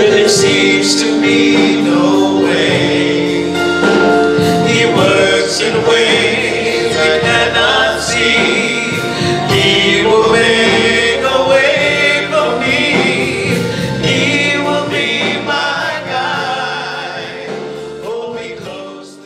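Gospel music with a choir singing, fading out over the last few seconds.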